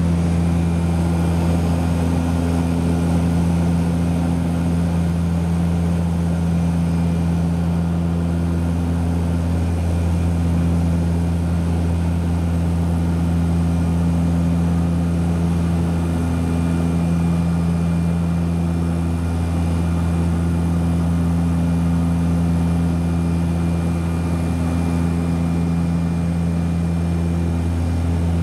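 Seaplane's turboprop engine and propeller running steadily in cruise, heard inside the cabin: a loud, even drone with a deep hum that wavers slowly every few seconds.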